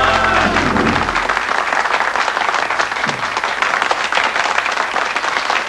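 A song's last held chord dies away in the first second, then an audience applauds steadily until the sound cuts off.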